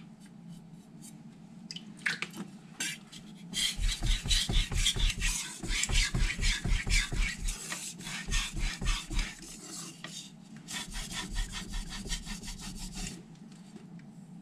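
A carbon-steel (Aogami #2) kitchen knife blade scraped back and forth across a Naniwa Aotoshi 2k whetstone in quick, rhythmic strokes, raising a burr along the edge. After a few scattered strokes, the strokes come in two runs with a short pause between them and stop near the end.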